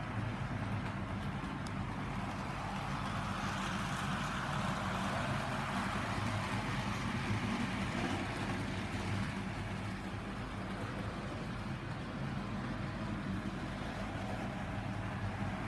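Model train running on its track: a steady electric-motor hum with wheel-on-rail rumble, which grows louder in the middle as the train comes closer and then fades.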